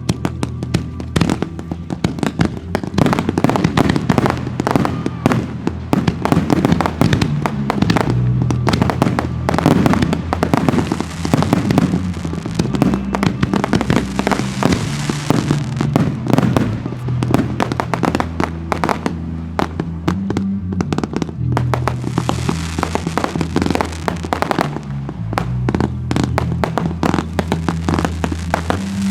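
A fireworks display firing dense, rapid volleys of bangs and crackles, with music and a steady bass line underneath.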